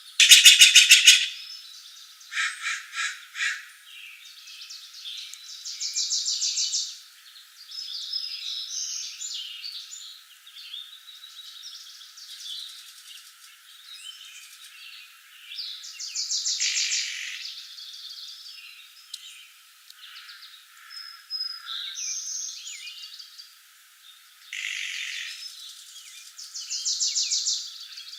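Several birds singing and calling, with a rapid high trill that comes back about every ten seconds and a loud burst of song right at the start.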